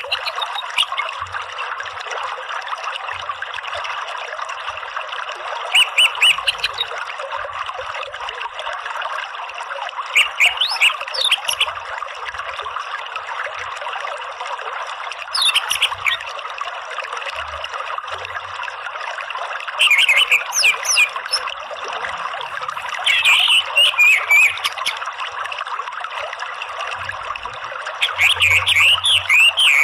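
Orange-headed thrush singing in short phrases of a second or so every few seconds, its notes gliding up and down. Under it runs the steady rush of a flowing stream.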